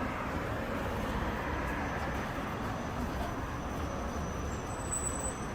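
Steady street ambience: a low, even rumble of distant traffic, with a faint thin high tone above it.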